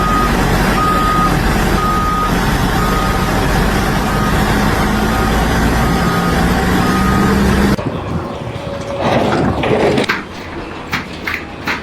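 Heavy vehicle's reversing alarm beeping about once a second over a running engine, the beeps growing fainter. It cuts off abruptly near the end, followed by a few sharp knocks and clicks.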